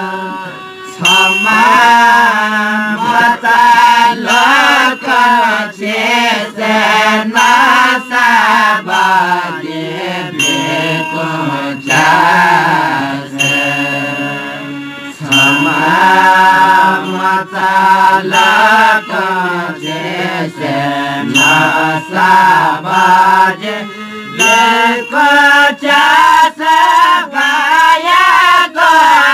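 Newari devotional folk song sung by a Jyapu singing group with harmonium, in a 1986 field recording. Strokes of tah (small cymbals) and lalakhi (barrel drum) keep a steady beat under the singing.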